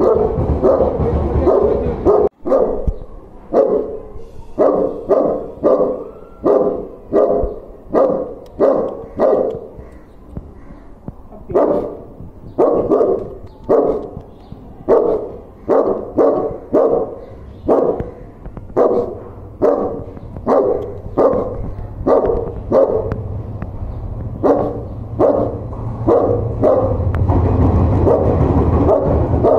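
A large dog barking repeatedly in a steady run, roughly one to two barks a second, with a short break about ten seconds in.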